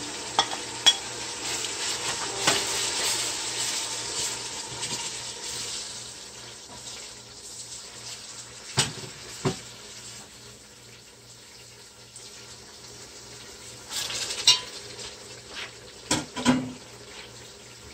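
Onion, ginger-garlic and ground-spice masala frying in a steel pot. It sizzles loudest for the first few seconds as it is stirred, then quieter. A few metal clinks of the spoon against the pot come around the middle and near the end.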